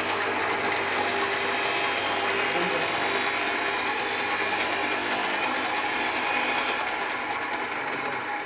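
Electric arc welding: a steady crackling hiss from the arc, with the highest part of the hiss dropping away about seven seconds in.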